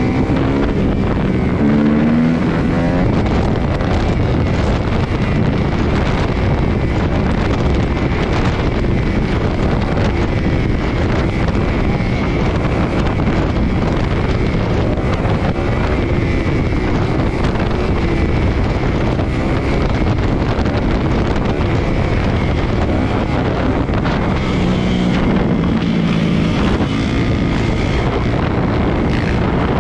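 Dirt bike engine running hard at street speed, its revs climbing about two seconds in and again near the end, under heavy wind noise on the rider's camera microphone.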